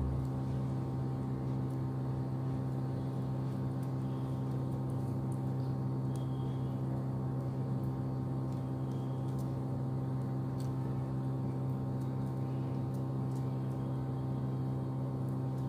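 A steady low electrical hum with evenly spaced overtones, unchanging throughout, with a few faint light clicks.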